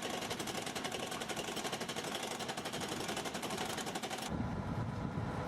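Rapid, even hammering of a hydraulic breaker, many blows a second. About four seconds in it cuts off abruptly, and a low rumble takes over.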